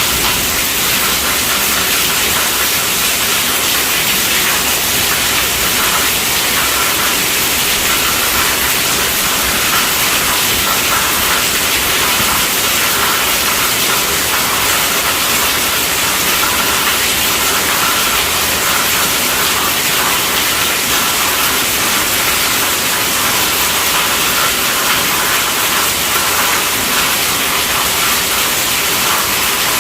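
Heavy rain falling on a tent roof: a dense, steady hiss of many drops.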